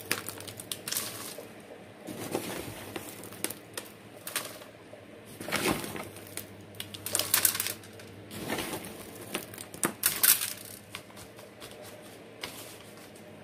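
Loose chunky bark-and-moss potting mix rustling and crackling as it is scooped by hand from a plastic tub and packed into a clear plastic cup, with light plastic knocks, in irregular bursts every second or so.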